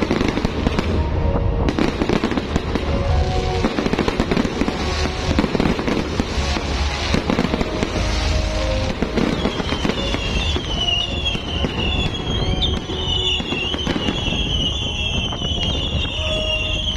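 Fireworks display: dense crackling and popping over low booms. From about halfway through, a string of warbling, wavering whistles from whistling fireworks joins in.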